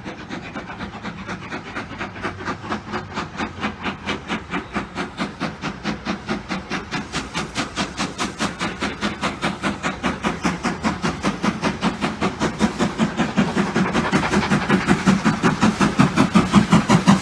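LNER Thompson B1 class 4-6-0 steam locomotive 61306 approaching under steam: its exhaust beats come in an even rhythm of about five a second and grow steadily louder as it nears.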